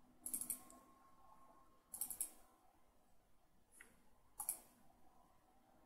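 Faint computer mouse clicks, a few short sharp clicks spaced about two seconds apart.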